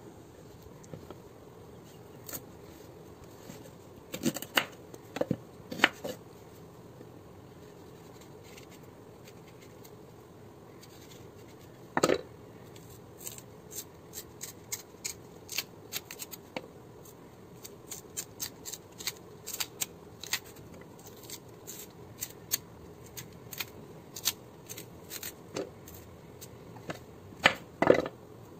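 Raw green Kerala bananas (plantains) being peeled by hand on a wooden chopping board: many short crisp snaps and clicks as the stiff peel is pried and torn away, with a few louder knocks against the board. A faint steady hum lies underneath.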